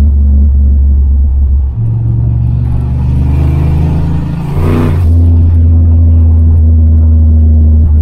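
Turbocharged Fox-body Mustang V8 heard from inside the cabin, running with a steady low drone. About two seconds in the revs rise under throttle, and the climb ends in a short turbo whoosh just before five seconds, after which the engine settles back to a steady cruise.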